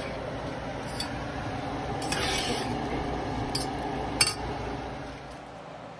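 Metal spoon stirring macaroni and cheese in a stainless steel saucepan, scraping through the pasta, with a few sharp clinks of spoon on pan, the loudest a little past four seconds in.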